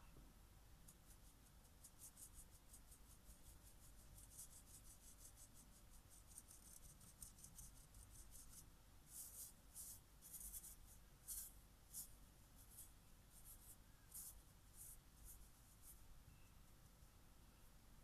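Faint, quick scratchy rustling of a stainless steel mesh sieve being shaken over a bowl as flour and baking soda sift through it. The strokes come in rapid runs, louder in the second half, and stop a couple of seconds before the end.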